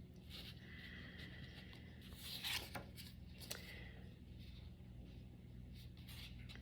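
Faint rustling and a few soft clicks from light handling, over a steady low room hum.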